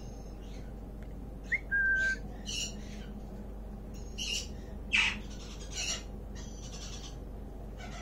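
Young blue-streaked lory calling in short spurts: a quick rising chirp and a clear held whistle about two seconds in, then a string of short, harsh squawks, the loudest about five seconds in.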